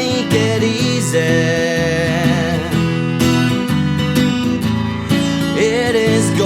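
Music: a song with strummed acoustic guitar and a wavering melody line over it, with no words sung.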